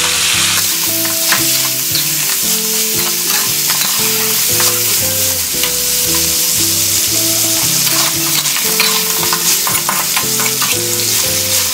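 Duck pieces sizzling as they are stir-fried in a steel wok, with a metal spatula scraping and tapping against the pan. A soft melody of held low notes runs underneath.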